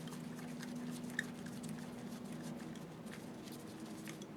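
Faint small clicks and scrapes of metal parts being handled as a screw is turned into the slit lamp's tower assembly, over a steady low hum.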